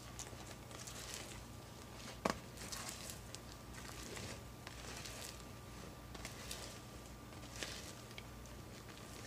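Spatula folding beaten egg whites into a thick batter in a bowl: faint, soft scraping and squishing strokes, with a sharp tap against the bowl about two seconds in.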